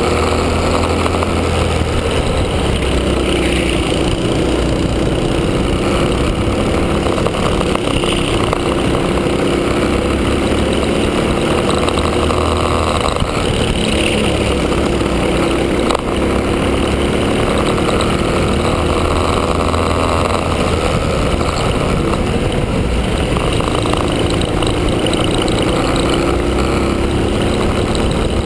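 Honda Cadet kart's single-cylinder four-stroke engine running at speed on track, its revs rising and falling repeatedly through the laps.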